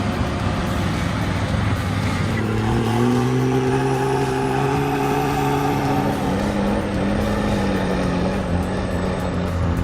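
Heavy timber truck's engine running; about two seconds in its note climbs and holds, then eases down near the end.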